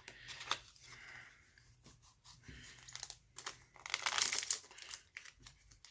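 Foil trading-card booster pack wrapper crinkling as it is handled, with light clicks and taps of cards; the crinkling is loudest about four seconds in.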